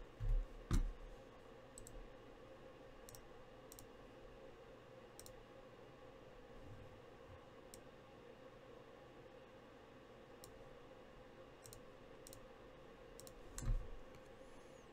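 Faint, sparse little clicks and a few soft bumps from trading cards being handled, over a low steady hum.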